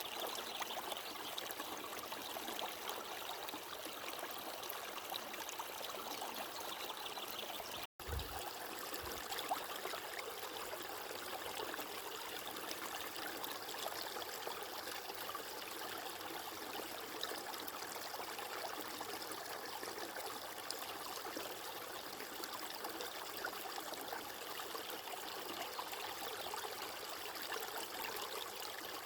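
Running water flowing steadily, with a momentary break in the sound and a short low thud about eight seconds in.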